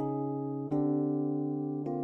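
Background music: held keyboard chords over a steady low bass note, changing chord twice.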